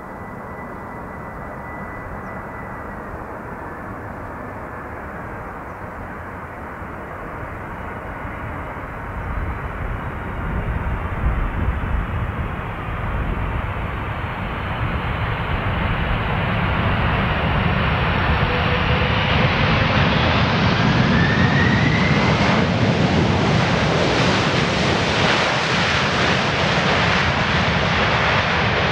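Boeing 747 jet on approach to land, the noise of its four engines building steadily louder as it comes nearer, with a faint rising whine about two-thirds of the way through.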